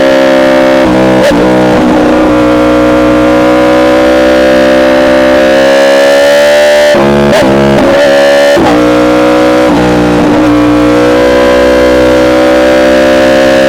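Yamaha R1 inline-four with an SC Project exhaust pulling hard at high revs, its note climbing slowly in pitch. It breaks off briefly several times in the middle for quick quickshifter upshifts, then drops a little and climbs again.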